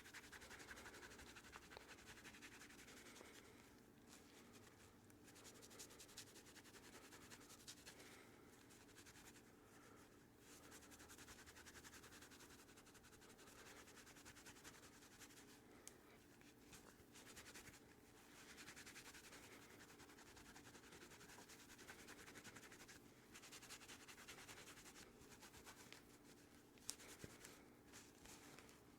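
Faint rubbing of a cloth buffing a leather knife slip, in repeated strokes that swell and fade, with one light click near the end.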